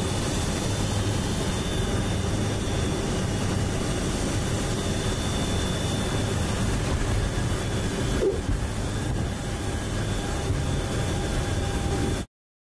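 Cockpit noise of a C-130 Hercules taxiing: the steady drone of its four turboprop engines and propellers, with a thin high whine on top. A brief knock comes about eight seconds in, and the sound cuts off abruptly near the end.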